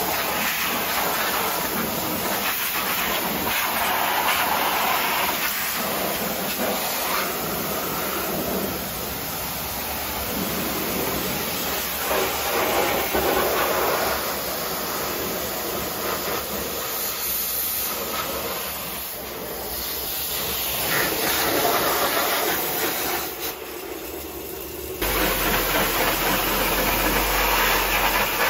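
High-pressure washer jet blasting mud off the underside of a Jeep, a steady hiss of spray striking the chassis, muffler and axle that swells and dips as the wand moves. The sound changes abruptly about three-quarters of the way through as the jet turns to the exhaust pipe and rear suspension.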